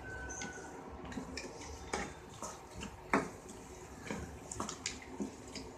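A metal spoon stirring a thin tamarind gravy in a pan, with wet sloshing and several light clinks of metal against the pan. The loudest clinks come about two and three seconds in.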